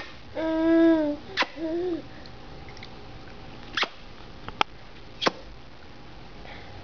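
A baby's voice: one held, even-pitched 'aah' about half a second in, then a shorter wavering coo, followed by a few short sharp clicks spread over the next few seconds.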